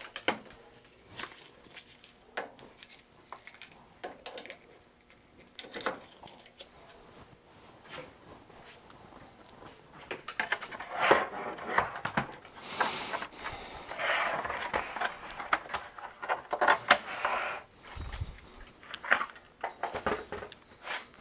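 Handling noise on a wooden workbench: scattered clicks and knocks as a metal-cased bench multimeter and its cables are moved about, turning into denser clattering and rubbing over the second half, with a dull thump a few seconds before the end.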